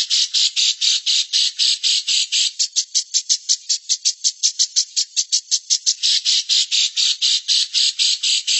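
A bird's harsh, rattling call: a fast, even run of buzzy chips at about eight a second, kept up without a pause.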